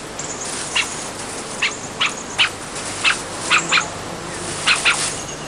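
Tasmanian devils giving short, sharp calls, about nine of them, some in quick pairs, over a steady hiss.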